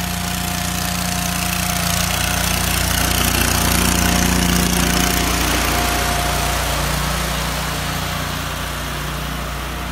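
Small engine of a stand-on mini track loader running as it drives past, growing louder to a peak about four seconds in and then fading as it moves away.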